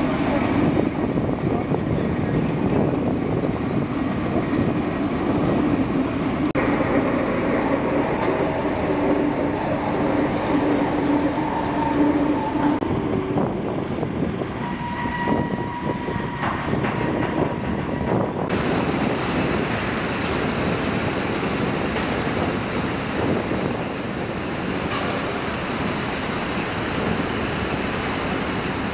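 Steady heavy-vehicle and machinery rumble as military vehicles are moved down a cargo ship's metal ramp and out of its vehicle deck. Short high squeaks come in the last part.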